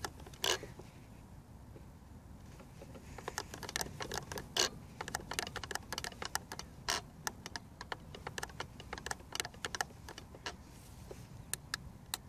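Small plastic clicks from a Hubsan X4 Pro radio transmitter's buttons and sticks being pressed and worked, in irregular runs with a lull about a second in and quicker clicking near the end, over a low background rumble. The trim buttons are being pressed to save a stick calibration.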